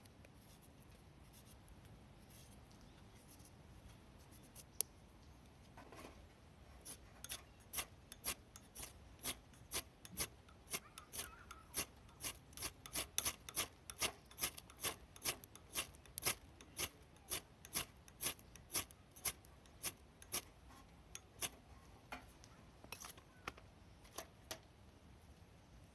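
A knife being drawn in short, repeated scraping strokes, about two a second, beginning about seven seconds in and thinning out near the end: the kind of rasping made when carving feather sticks or striking a fire steel.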